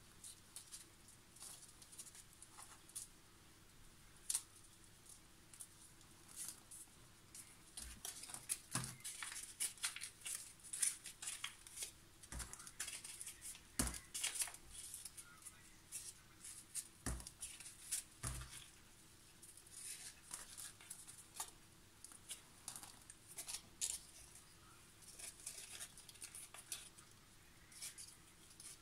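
Folded origami paper being handled and pressed together by hand: a string of quick, faint crackles and rustles, busiest in the middle, with a few soft thumps.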